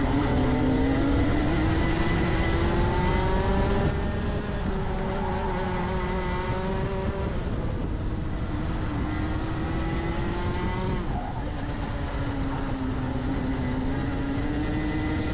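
Rotax Max 125cc two-stroke kart engine heard onboard, its revs climbing under acceleration, easing off about eleven seconds in for a corner, then building again near the end. A steady rushing noise runs underneath.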